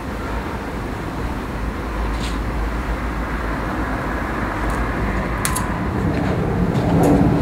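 Steady low rumble of outdoor background noise, growing a little louder near the end, with a few faint clicks.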